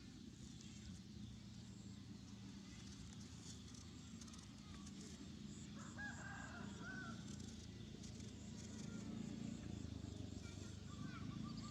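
A rooster crows once in the distance, about six seconds in, over a steady low rumble. Near the end a bird starts a quick run of short repeated notes, about four or five a second.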